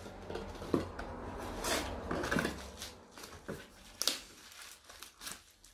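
Cardboard packaging being handled and opened: irregular rustles, scrapes and clicks, with a sharp click about four seconds in.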